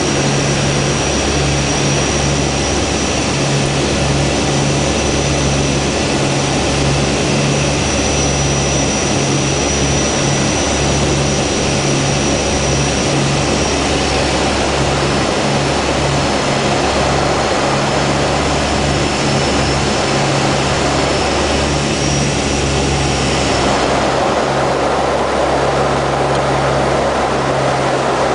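De Havilland Canada Dash 8 turboprop engines and propellers heard inside the cockpit: a loud, steady rush with a low throbbing propeller drone. A thin high whine fades out near the end as the sound shifts lower.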